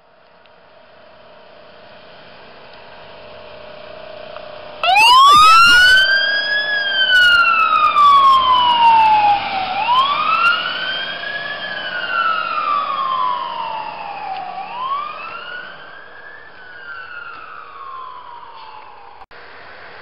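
Fire-rescue ambulance pulling out with its engine running louder for a few seconds before its siren switches on suddenly. The siren gives a brief rapid warble, then settles into a slow wail that rises and falls three times, about five seconds per cycle, and cuts off suddenly near the end.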